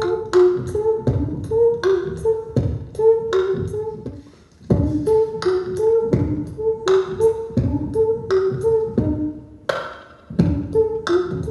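Beatboxing: a steady beat of mouth-made kick-drum thumps and hissing snare and hi-hat clicks, with short pitched notes alternating between two or three pitches woven between the beats. The beat drops out briefly about four and a half seconds in and again near ten seconds.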